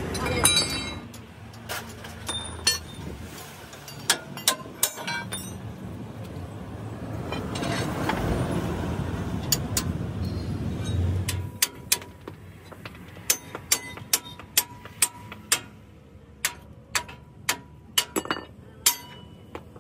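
Steel hand tools clinking and tapping against a heavy truck's front axle parts: sharp metallic taps come scattered, then about one or two a second in the second half. Midway a passing vehicle's noise swells and fades.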